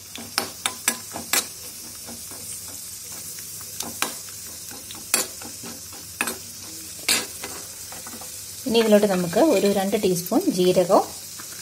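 Cashew nuts frying in ghee in a small kadai with a steady sizzle, while a metal spoon stirs them and knocks against the pan a number of times in the first seven seconds. Near the end a person's voice is loud for about two seconds.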